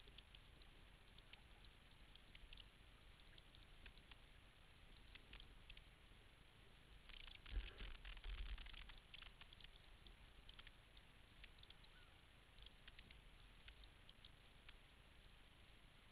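Near silence: faint, muffled water and wind noise of a sailboat under way, with light scattered crackling and a brief louder bump about seven and a half seconds in.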